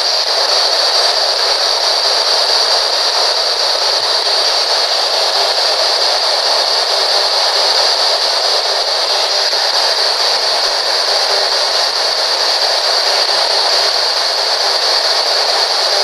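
P-SB11 spirit box putting out a loud, steady hiss of white noise, the static that investigators listen through for voices.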